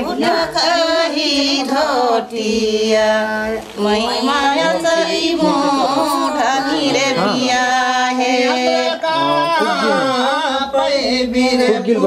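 Singing, with long held notes that bend between pitches.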